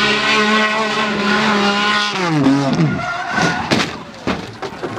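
Race car engine running at high revs, its pitch dropping steeply about two seconds in as the car skids, then several heavy crashing impacts as it hits the roadside wall over the following two seconds.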